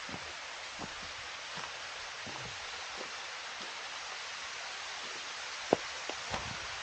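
Steady hiss of falling water from a waterfall, with a few faint clicks and one sharper click near the end.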